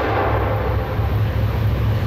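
Freight train's diesel locomotive air horn ending a blast just after the start, over the train's steady low rumble.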